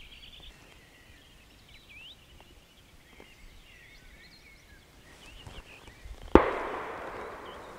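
A single distant shotgun shot about six seconds in, its report echoing and fading over more than a second. Birds sing faintly throughout.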